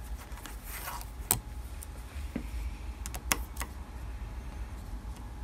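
Hex key turning a small steel grub screw down into a threaded hole in a lathe tailstock part: a few sharp metallic clicks, the clearest about a second in and again about three seconds in, over a faint low hum.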